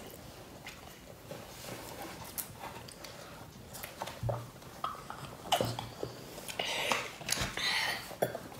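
Quiet sounds of children eating and drinking at a table: a sip of juice, light clicks of a fork and dishes, and mouth noises.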